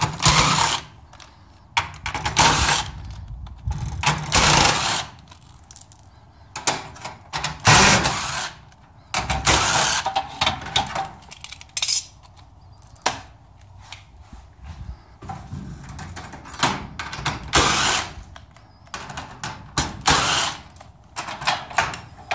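Cordless drill-driver running in short bursts of about a second, a dozen or so times, backing the screws out of a garage door's bottom bracket and hinges.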